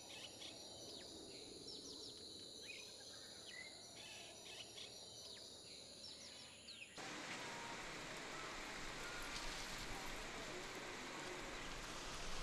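Faint outdoor ambience: scattered short bird chirps over a steady high faint tone for the first half. About seven seconds in, it cuts suddenly to a louder, even hiss like wind or rustling.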